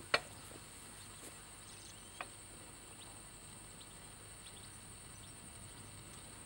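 A steady, high-pitched insect trill runs throughout. Over it come sharp clicks from the hand-lever extraction jack of a percussion window-sampling rig as its lever and clamp are worked: a loud one just after the start, and another about two seconds in.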